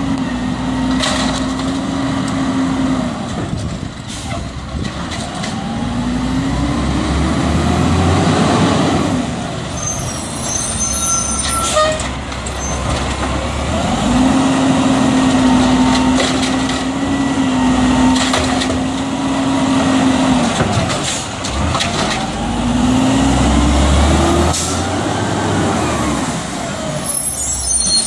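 LA Sanitation automated side-loader garbage truck's diesel engine, rising in pitch twice as the truck pulls ahead from cart to cart, with a steady engine drone in between. Air brakes hiss and clatter about ten seconds in.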